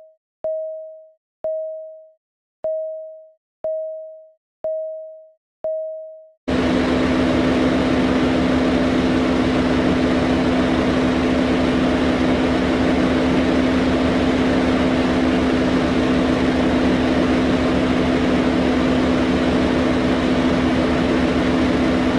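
A run of short electronic beeps, all at one pitch, about one a second, each fading quickly. About six seconds in, a loud, steady racing-car engine sound effect cuts in and holds at one pitch.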